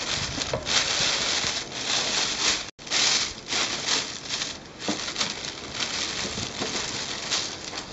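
Thin plastic bag rustling and crinkling in irregular bursts as a hand opens it and reaches in among the pads of a boxed waste-oil absorbent pack, with a brief gap a little under three seconds in.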